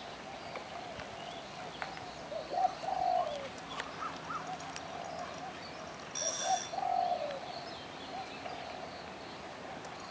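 Doves cooing in short phrases, loudest about two and a half and six and a half seconds in, over faint chirping of other birds.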